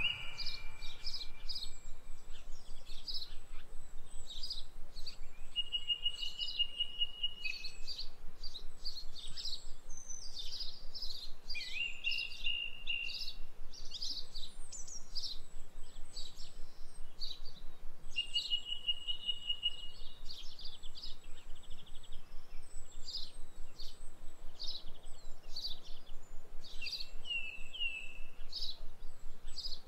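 Songbirds singing: a steady stream of short, high chirps and whistles, with a rapid trill held for a second or two about four times.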